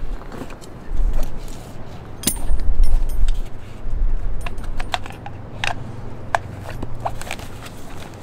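Gear being handled in a soft fabric tool bucket: scattered sharp clicks and light metallic rattles, with fabric rustling. A low rumble swells twice in the first half.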